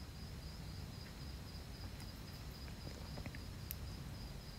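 Quiet background: a faint steady high-pitched trill over a low hum, with a few faint light clicks.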